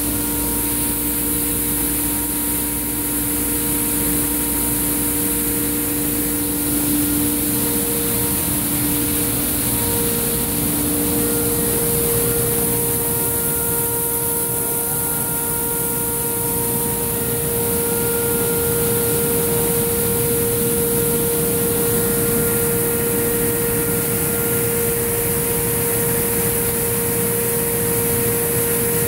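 Pneumatic coffee conveyor running: a 4,800 CFM centrifugal fan blowing coffee through 4-inch PVC pipe, heard as a steady rush of air with a strong high hiss and a steady hum. One of the lower tones drops out about halfway through.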